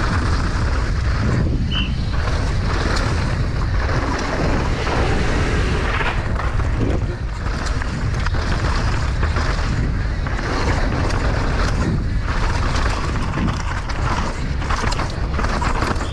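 Downhill mountain bike ridden fast over dry dirt and loose rock: a steady rush of wind buffeting the on-board camera microphone, with tyres crunching and the bike rattling and knocking over the rough ground.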